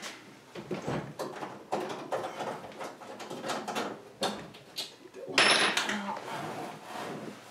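Irregular knocks, clicks and rattles of an old GE over-the-range microwave being handled and shifted against its wall mount, with one louder scraping clatter a little past halfway.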